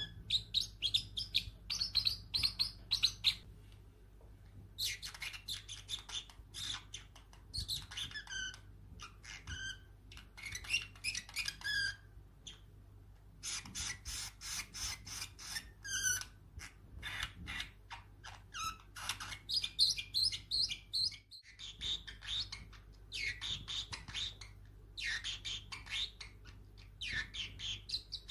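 Young Pacific parrotlet chirping in rapid runs of short, high chirps. Each run lasts a second or two, with brief pauses between runs.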